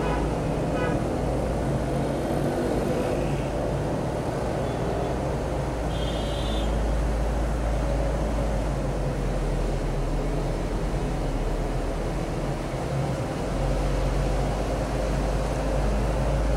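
Steady low rumble of town traffic, with a faint short high tone about six seconds in.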